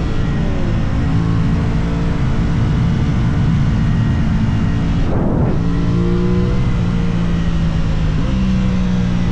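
Aprilia RS660 parallel-twin engine running at steady revs while riding, with wind noise. There is a brief noisy break about halfway through, and the engine note steps up in pitch near the end.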